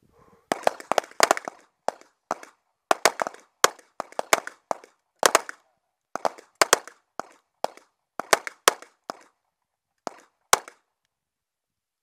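Handgun fire on a range: some thirty sharp pistol shots in quick, uneven strings, singles, pairs and rapid clusters, stopping about ten and a half seconds in.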